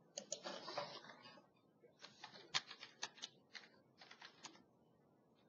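Typing on a computer keyboard: irregular runs of quiet key clicks, mostly in the second half, after a brief scuffing noise about a second long at the start.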